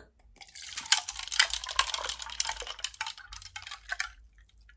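Orange Fanta poured from a paper fountain cup into a clear plastic cup: a crackly fizzing pour full of small pops that stops about four seconds in.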